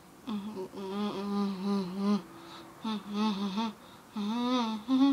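A girl humming a wordless tune with closed lips, in three phrases with short pauses between.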